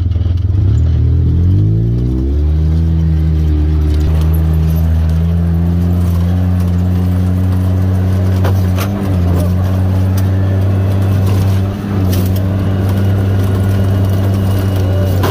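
Off-road vehicle engine rising in speed over about a second and a half, then running at a steady pitch, with two brief dips in the middle.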